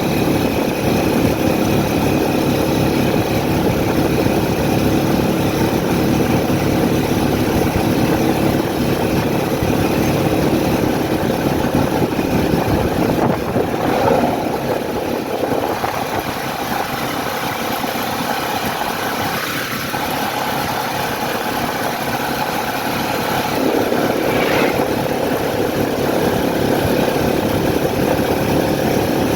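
A vehicle engine running steadily with a constant low hum, a little quieter for several seconds through the middle.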